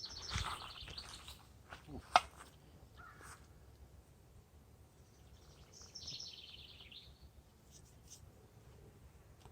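A songbird sings a rapid trill of high notes, lasting about a second, twice, the second about six seconds after the first. A single sharp click comes about two seconds in.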